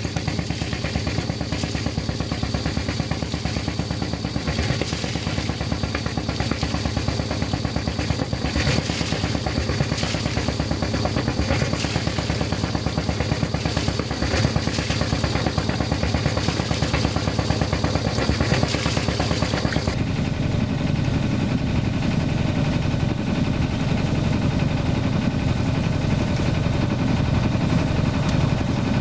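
A sailboat's inboard Volvo Penta MD-11C two-cylinder diesel running steadily under way, a fast even chugging. A thin high whine sits over it until about twenty seconds in, after which the low chug grows heavier.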